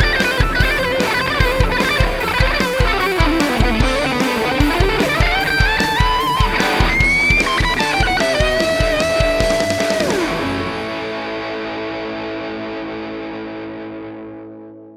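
2003 Wayne Custom electric guitar through an overdriven Marshall JCM800 amp: fast distorted lead lines with bends and slides, a long held note that dives down in pitch about ten seconds in, then a final chord ringing out and fading away.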